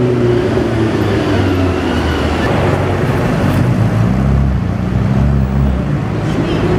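Supercar engines and city traffic: an engine's note rises and falls as sports cars pull away and pass.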